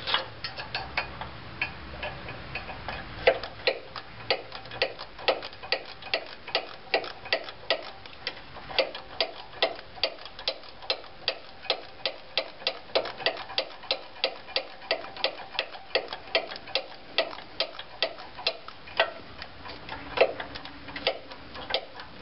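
Quarter-inch drive ratchet with a 3-inch extension and 5 mm socket clicking in a steady run of sharp clicks, about three a second, as it turns exhaust manifold studs into the lower end of a Ford 5.4L V8.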